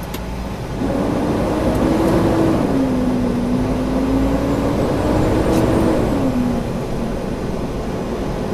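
Semi-truck diesel engine heard from inside the cab, pulling away and accelerating. Its pitch climbs, drops back, climbs again and drops a second time as the truck shifts up through the gears.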